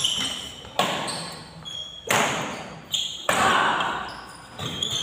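A badminton doubles rally: rackets strike the shuttlecock hard about four times, roughly one hit every second and a quarter, and each hit echoes through a large hall. Sneakers squeak on the court between the hits.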